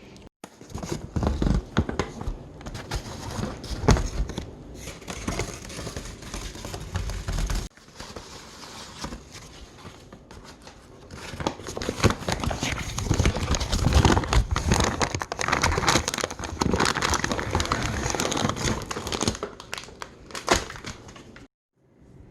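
Close, irregular crinkling and rustling of something being handled, full of small clicks and crackles. It cuts off abruptly about 8 s in and again near the end.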